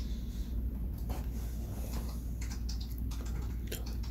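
Computer keyboard typing: scattered, irregular key clicks, over a steady low hum.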